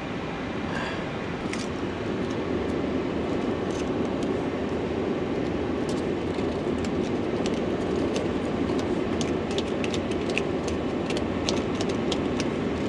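Airbus A320 cockpit circuit breakers being pushed back in one after another, a run of short sharp clicks that comes thickly from about halfway through. Underneath is a steady air-conditioning hiss.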